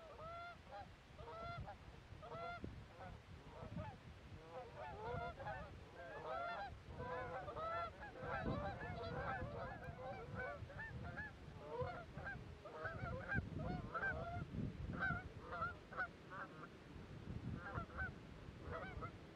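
A flock of Canada geese honking as they circle and come in to land over decoys: many short, overlapping honks that grow thicker after the first few seconds, over a low rumble.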